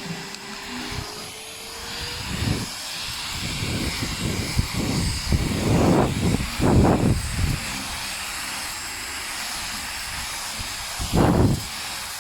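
Airbot Airism CV100 cordless stick vacuum running: a steady motor whine with rushing air. Louder low surges come about six to seven seconds in and again near the end.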